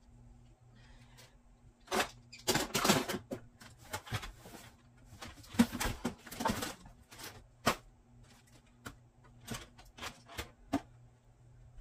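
Odds and ends, plastic toys among them, being picked up and sorted by hand: irregular clattering, knocking and rustling in short bursts, with quieter stretches between.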